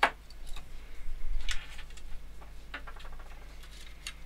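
Scattered clicks and light knocks of a plastic device case and small hand tools being handled and set down on a desk as a screwdriver is brought in: a sharp click at the start, then a few more spread through.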